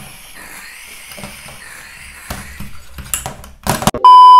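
Butane gas cartridge being pushed into a portable camping stove's fitting: a faint wavering hiss of gas escaping as it seats, with a couple of sharp clicks near the end. About four seconds in, a loud steady test-tone beep cuts in.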